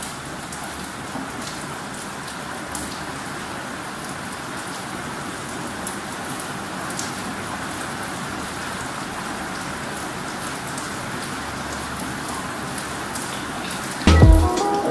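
Steady rain hiss with faint scattered drop ticks. Music starts near the end.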